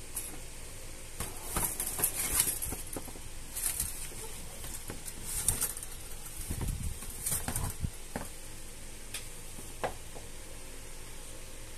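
Kittens clawing and batting at an open umbrella: scratchy rustles of the canopy fabric and claws, with a few soft thumps around the middle, over a steady background hiss.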